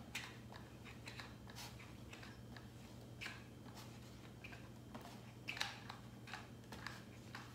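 Faint, scattered clicks and taps of a hot glue gun being worked along foam board, with light handling of stiff cardstock, over a steady low hum.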